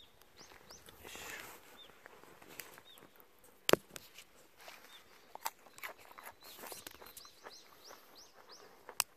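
Small birds chirping repeatedly in short, high arching notes. A sharp click about four seconds in is the loudest sound, with another near the end.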